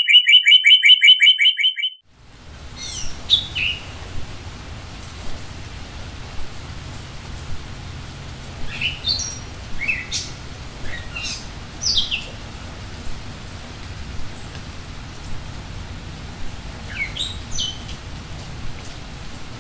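Small songbirds chirping in short, scattered calls over a steady background hiss, opened by a fast, clean trill of about eight chirps a second lasting about two seconds.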